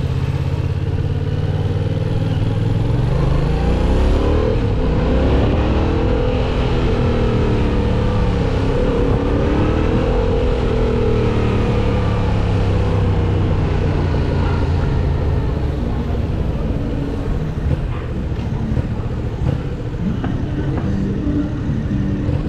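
Yamaha MT-07's parallel-twin engine under way: running steadily at first, then revving up from about two seconds in. Its pitch rises and falls with the throttle for several seconds before settling into a steadier cruise.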